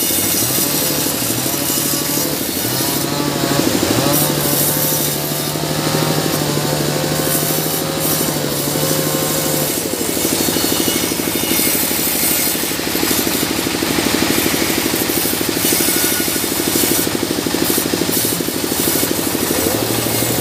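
Band saw cutting through a mahogany log, giving a continuous rasping cut over a machine hum that shifts up and down in pitch.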